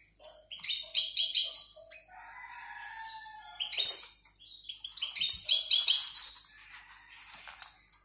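Small cage birds chirping and trilling: two loud runs of rapid repeated high notes, each ending in a held high whistle, about a second in and again around five to six seconds in, with a lower warbling note between them.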